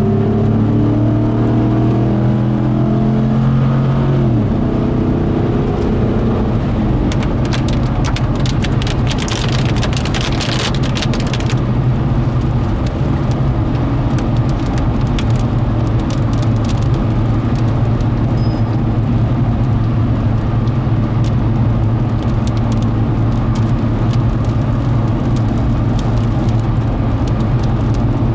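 Vehicle engine and road noise heard from inside the car, its engine tones dropping in pitch about four seconds in and then giving way to a steady low hum. Raindrops tap against the windshield throughout, most thickly for a few seconds in the middle.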